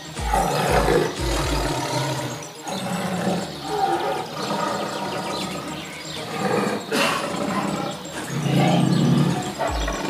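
Background music with a heavy, repeating bass beat and dense, growling layered sounds.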